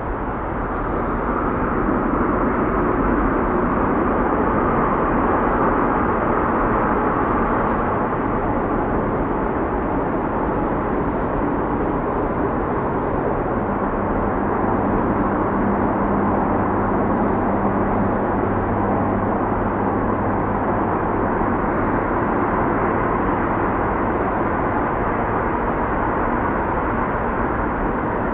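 Distant freeway traffic: a steady, even wash of tyre and engine noise. A low engine hum joins about halfway through and fades out near the end.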